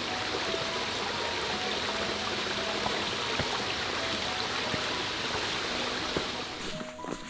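Small rocky mountain stream running over and between stones, a steady rush of water that drops away near the end.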